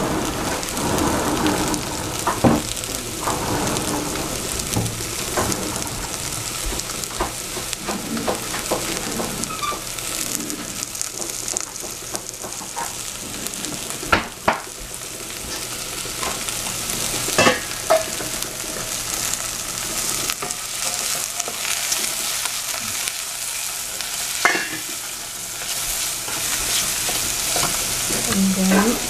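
Sliced celery and shiitake mushrooms sizzling steadily in a stainless steel saucepan, with a wooden spatula stirring them and knocking sharply against the pan now and then.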